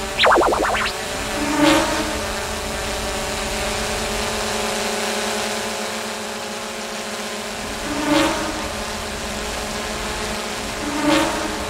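Quadcopter drone propellers buzzing steadily, with brief swells in loudness a few times as it moves past. A quick run of short high chirps comes about half a second in.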